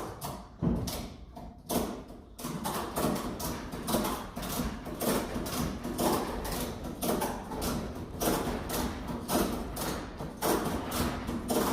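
Ratchet strap being cranked to lift a plastic pickup bed: the ratchet clicks sharply in an even rhythm, about two clicks a second, after a few separate clicks at the start.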